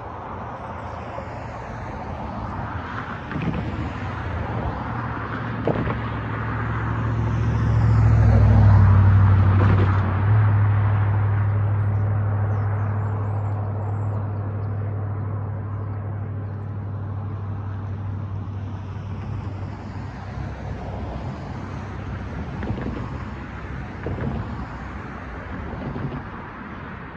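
Road traffic crossing the railroad tracks: a vehicle's engine hum builds to a peak about eight seconds in, then slowly fades, with a few short knocks along the way.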